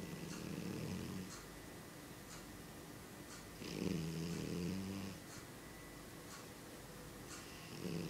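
A domestic cat snoring in its sleep. There are three low buzzing snores about four seconds apart: one at the start, one about four seconds in, and one beginning near the end. Each lasts about a second.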